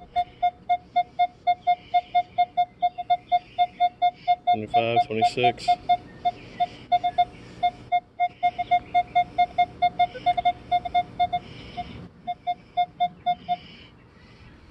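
Minelab Equinox 600 metal detector beeping repeatedly, about three to four short beeps a second of one steady high tone, as a silver Mercury dime is swept back and forth past its coil. The dime reads as a high-conductivity target, 24 to 25 on the display. A brief wavering sound comes in about five seconds in.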